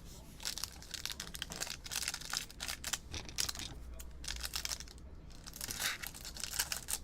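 Packaging of a trading-card mini box being opened and handled: irregular crinkling and tearing of plastic wrap and card stock, with a short pause about five seconds in.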